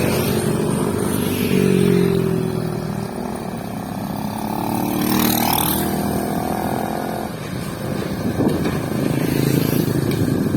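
Excavator diesel engine running, its pitch rising and falling as it works, with a rougher, noisier stretch in the last couple of seconds.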